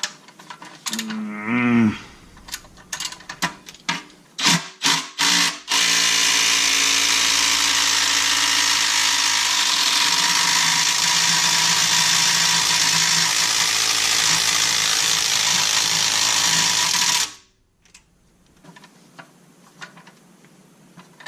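Cordless DeWalt power tool working a starter mounting bolt: a few short bursts, then one long continuous run of about eleven seconds that cuts off suddenly. The E-Torx bolt head is not coming out and gets stripped.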